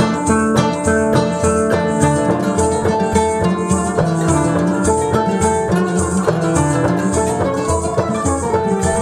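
Background instrumental music with plucked strings over a steady beat.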